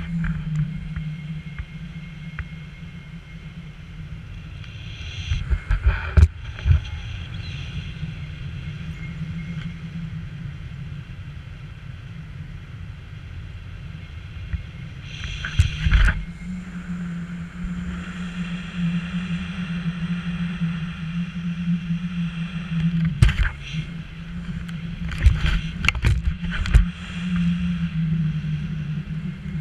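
Wind rushing over the microphone of an action camera on a pole during a tandem paraglider flight: a steady low hum with an airy rush above it, broken by several sudden buffeting thumps.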